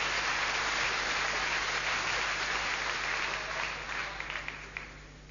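Crowd applauding a point in a table-tennis match, the clapping thinning out and dying away about four to five seconds in.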